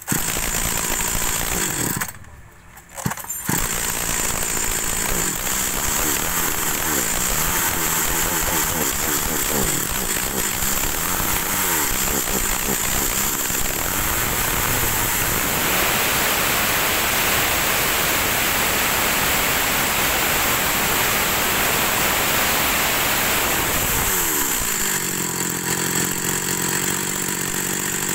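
Echo (Kioritz) 39cc two-stroke chainsaw running with the chain free. It cuts out briefly about two seconds in and starts again, then is blipped on the throttle and held at high revs for several seconds. Near the end it drops back to idle and shuts off.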